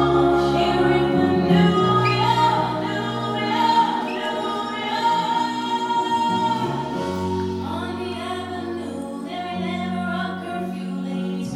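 A young man singing a song into a handheld microphone over backing music, with long held low notes underneath.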